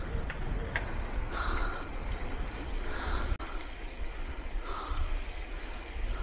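Wind buffeting the microphone of a camera on a moving bicycle, a steady low rumble with a few short puffs every second or two.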